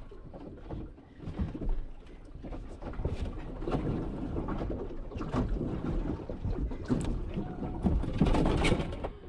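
Irregular knocks and clicks of gear on a small fishing boat, over a noisy bed of boat and water sound, during the fight with a hooked yellowfin tuna.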